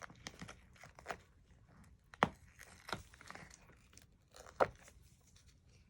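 Handling noises from craft work: scattered light clicks and crinkling, with sharper clicks a little after two seconds, near three seconds, and again past four and a half seconds.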